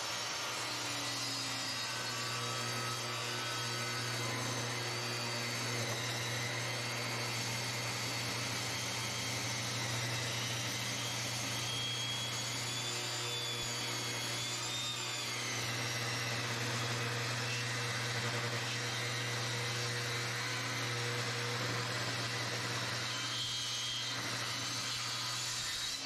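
Portable table saw running steadily while a hickory floorboard is fed through it for a 10-degree bevel rip. Its pitch wavers around the middle as the blade works through the wood.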